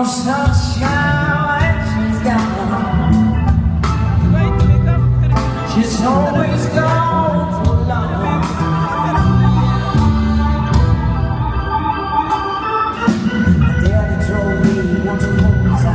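Live band playing an instrumental passage: sustained organ-like keyboard chords over bass guitar and drums.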